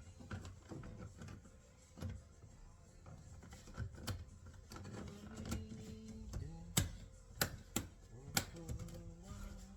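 Scattered clicks and knocks of hands and tools on car door trim and parts during reassembly, a few sharper knocks in the second half, with faint music under them.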